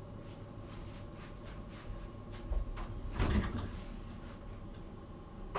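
Soft footsteps, then a kitchen door being pulled open with a rustling thump about three seconds in.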